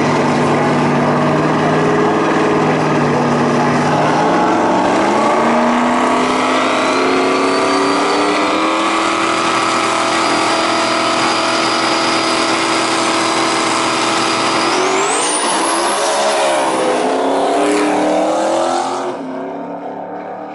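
Ford Mustang drag-racing engines on the starting line, running at a steady note, then brought up to a higher held rpm a few seconds in, with a high whistle over them. Near the end the whistle shoots up and the revs climb and fall through the gears as the cars launch, then the sound falls away sharply.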